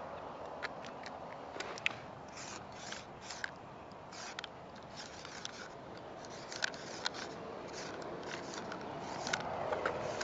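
Wide felt nib of a Molotow Speedflow marker scraping across rough painted concrete in short, quick strokes, with scattered sharp ticks, over a steady background hiss.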